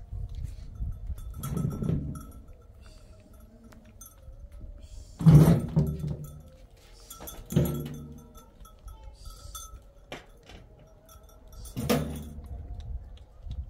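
Livestock calling four times in short separate calls, the loudest about five seconds in.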